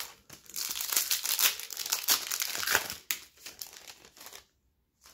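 Wrapper of a 2022 Topps Pro Debut baseball card pack crinkling and tearing as it is pulled open, loudest in the first three seconds, with a few smaller crackles before it stops about four and a half seconds in.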